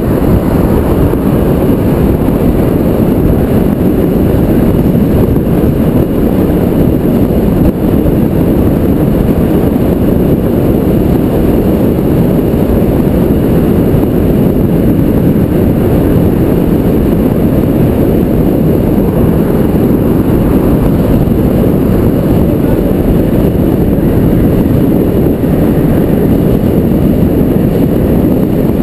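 Loud, steady wind rumble buffeting a helmet-mounted GoPro Hero 2 while riding a road bike at speed.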